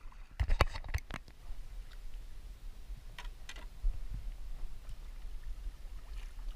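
Sharp clicks and knocks of gear on a fishing kayak while it is paddled: a cluster of four or five about half a second to a second in, and two fainter ones around three seconds in, over a low steady rumble.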